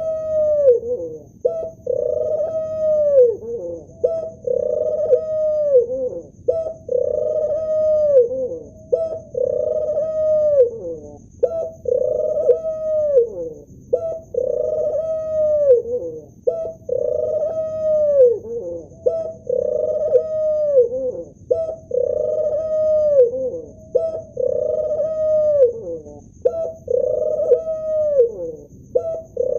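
Male ringneck dove cooing over and over, one coo about every two and a half seconds, each a held note that drops in pitch at its end.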